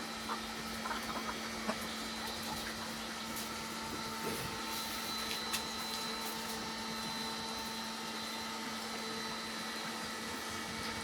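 Steady machine hum holding one low, constant tone, with a few faint scattered ticks.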